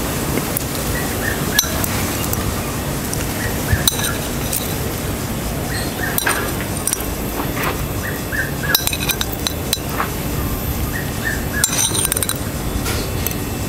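Light, scattered clinks and ticks of metal plating tweezers against a porcelain bowl and plate, over a steady background hiss.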